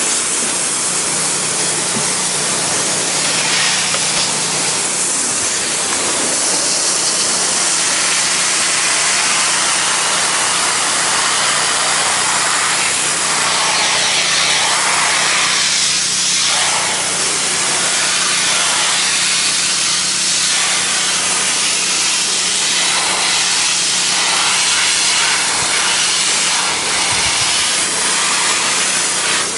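Pressure washer wand spraying water onto a wooden deck at low pressure: a loud, steady hiss of spray, with a steady low hum from the machine underneath.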